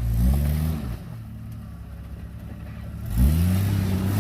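Jeep SUV engine revving in short blips, then dropping to idle about a second in, and revving up again twice near the end, as the high-centered vehicle tries to work itself off an obstacle.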